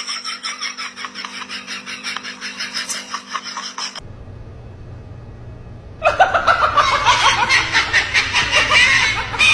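People laughing in quick pulses, cut off abruptly about four seconds in. A quieter stretch with only a low hum follows, then louder laughter starts suddenly about six seconds in.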